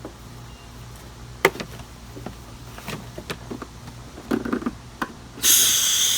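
Several sharp knocks and clatters of things being handled, then a loud hiss near the end that lasts about a second.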